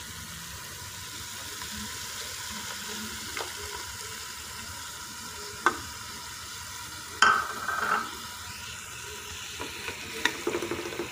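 Chicken pieces and half-fried spice masala sizzling in oil in a cooking pot as plain yogurt goes in. There are a few sharp knocks over the sizzle, the loudest about seven seconds in.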